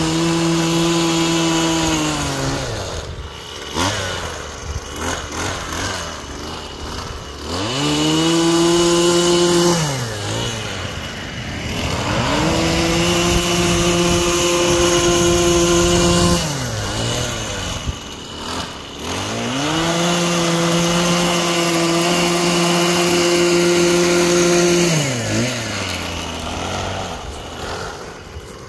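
Husqvarna power broom, a small gas engine on a shaft tool spinning a bristle sweeper brush through lawn and gravel. The engine runs up to high revs and holds for a few seconds, then drops back to idle, four times over.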